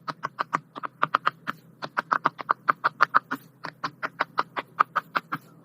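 Silicone push-pop fidget toy bubbles being popped one after another by fingers: a fast string of short pops, about seven a second, with a couple of brief pauses.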